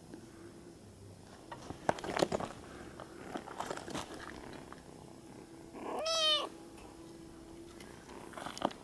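A kitten gives one short, high-pitched meow about six seconds in. Before it, about two seconds in, comes a cluster of sharp taps and scrapes.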